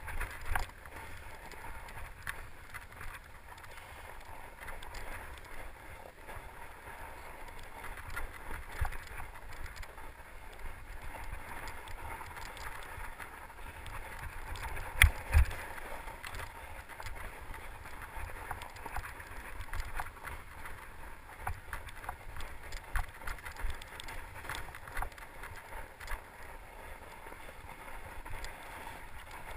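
Mountain bike riding over snow-covered trail: tyres crunching on snow with continual small rattles and clicks from the bike over rocks and sticks, and one sharp knock about fifteen seconds in.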